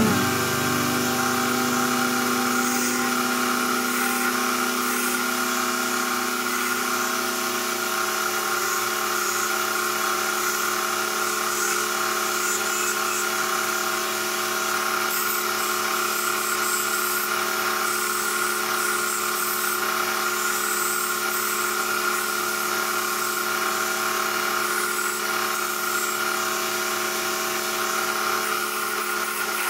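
Electric motor of a homemade wood lathe running steadily and spinning a wooden chess rook blank, a steady hum and whine with no cutting heard. About eight seconds in, its low hum steps slightly lower.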